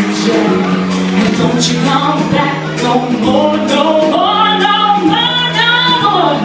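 Loud live electronic music: a woman singing a sliding, wavering line over a steady bass line and sustained synth chords.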